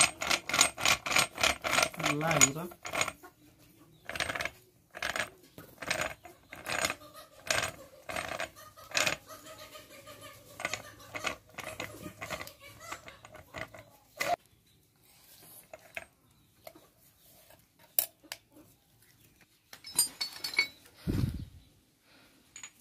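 Massey Ferguson tractor differential's bevel gears clicking metallically as the differential is turned by hand: a quick run of about five clicks a second, then single clicks every second or so, thinning out. A dull thump near the end.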